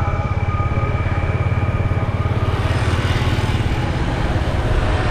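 Motorbike engine running steadily while riding, a rapid low pulsing, with a hiss that grows louder about two and a half seconds in.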